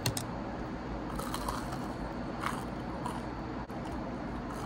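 Someone biting into and chewing a piece of sugar-coated fried dough, with a few short crackles as it is chewed.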